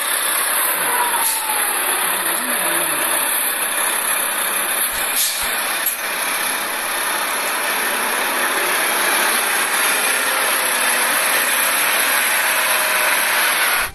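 Diesel engine of a Volvo BM A25 articulated truck fitted with a concrete mixer drum, running steadily, with an even hiss over it.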